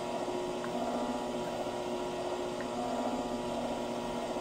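Power hammer running slowly with a steady motor hum as its dies work a high spot in a sheet-metal panel, knocking the bump down to shrink it.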